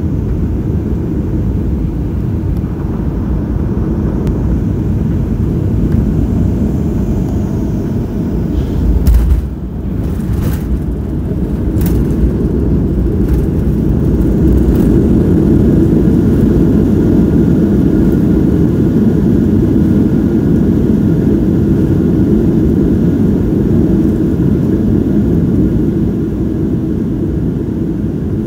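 Cabin noise of a Boeing 737 jetliner landing. The engine and airflow noise runs steady on approach; about nine seconds in comes a thump as the wheels touch down, then a few sharp rattles. From about fourteen seconds the noise grows louder as the engines are run up in reverse thrust to slow on the runway, easing off near the end.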